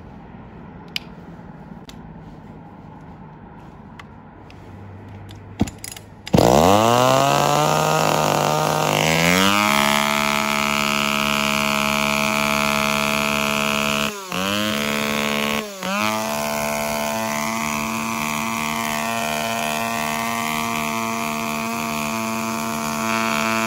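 Kreis KC-400AVE 37cc two-stroke chainsaw engine starting about six seconds in, after a few faint clicks: its pitch climbs over a few seconds as it catches, then it runs steadily at a high pitch. It dips briefly and recovers twice midway through.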